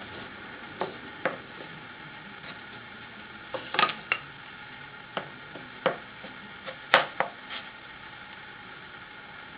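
Wooden parts of a small all-wood printing press knocking and clacking together as they are handled and fitted, about ten sharp knocks at irregular intervals. The loudest comes about two-thirds of the way through, over a steady hiss.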